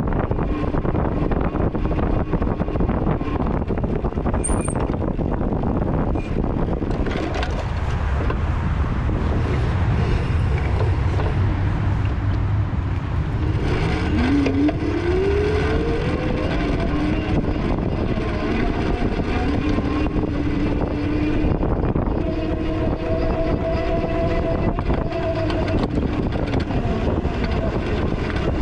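Engine of a vehicle driving off-road over a heavy, constant low rumble. About halfway through its pitch climbs as it revs, and near the end it runs steadily at a higher pitch.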